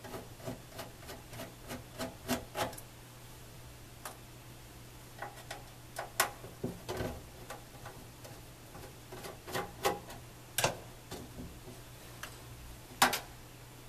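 Small screwdriver backing out the screws of a soldering station's metal front panel: scattered light clicks and ticks of the tool and screws, with a sharper click near the end as the panel is handled.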